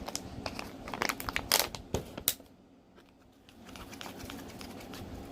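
Crinkling and clicking handling noise as glue slime is worked and water is added for mixing, busy for the first two seconds or so and then quieter.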